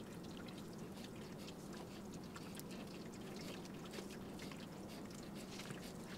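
Faint wet cutting sounds of a knife slicing a raw chicken breast away from the breastbone, with small scattered ticks over a steady low hum.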